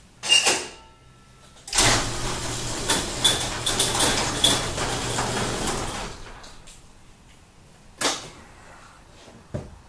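Two-post vehicle lift's electric hydraulic power unit running with a steady hum for about four seconds, then fading as the raised GMC truck is taken down. A single sharp knock follows about eight seconds in.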